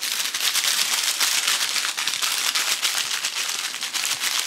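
Crinkly plastic rustling and crackling steadily, close up: a dense stream of tiny crackles that does not let up.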